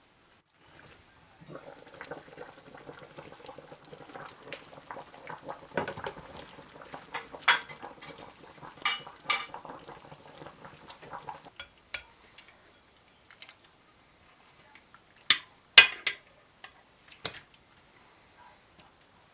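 Kitchen dishes and utensils clinking and knocking, several sharp clinks, the loudest in the second half, over a steady hum that stops about two-thirds of the way through.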